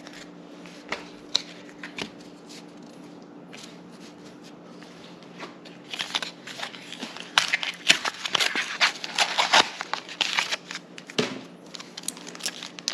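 Pokémon trading cards being handled and flipped through by hand, with papery clicks and slides of card on card, sparse at first and busier from about six seconds in.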